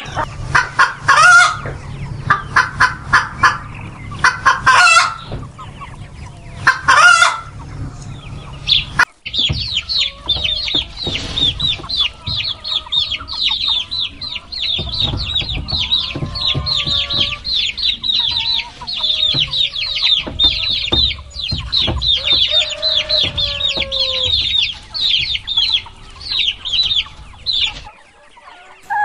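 Chickens cackling in loud, rapid, repeated bursts. About nine seconds in the sound cuts to a crowd of chicks peeping constantly in high, quick notes, with a hen's lower clucks and calls beneath.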